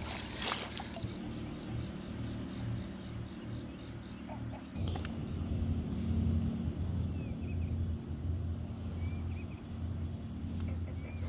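Night outdoor ambience: night insects keep up a steady high-pitched chorus over a low steady hum that grows louder about five seconds in.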